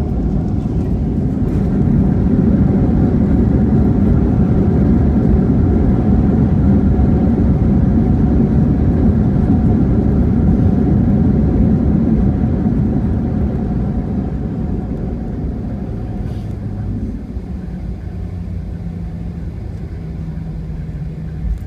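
Airliner landing rollout heard inside the cabin: a heavy engine and rumble noise swells over the first couple of seconds and holds. About 13 seconds in it dies away to a quieter, steady engine hum as the plane slows.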